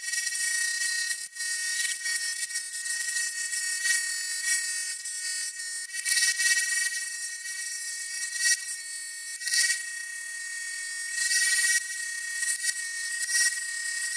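Mastercraft scroll saw running with a steady high whine as its blade cuts through thick Baltic birch plywood, the noise swelling louder several times in the second half as the piece is fed and turned.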